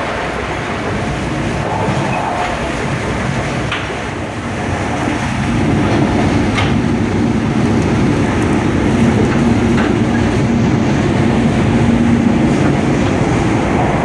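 Korail Mugunghwa-ho passenger train running at speed, heard from inside the carriage: a steady rumble of wheels on rail with a few sharp clicks from the track. It grows louder about five seconds in.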